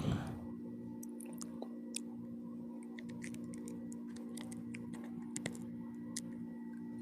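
Mouth noises of someone eating pizza close to the microphone: many small, scattered wet clicks, over a steady low hum. There is a short louder burst right at the start.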